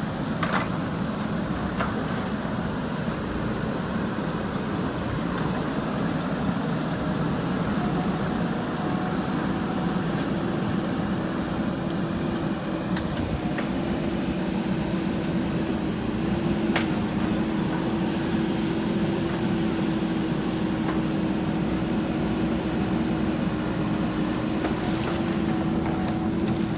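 JCB backhoe loader's diesel engine running steadily under working load, a continuous drone with a few brief clicks.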